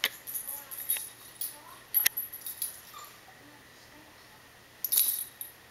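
Metal ID tag and ring on a puppy's collar jingling in short bursts as the puppy moves: several jingles in the first two seconds, a pause, then another jingle about five seconds in.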